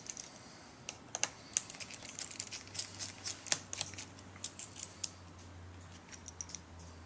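Irregular light clicks and ticks of a precision screwdriver and small screws being handled as screws are taken out of a MacBook Pro logic board, several clicks a second at their busiest.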